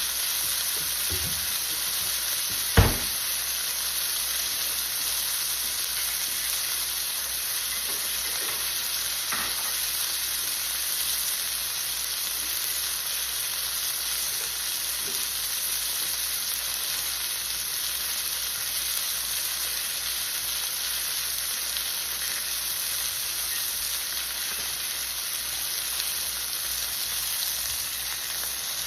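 Flour-coated chicken breast pieces frying in a pan over low heat, a steady sizzle. A single sharp knock comes about three seconds in.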